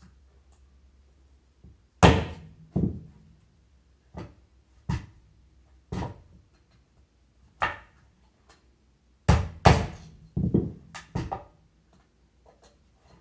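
Hammer knocks on a wheelchair caster while its bearing is driven in or out: about a dozen sharp, irregularly spaced taps, coming in a quicker run about two-thirds of the way through.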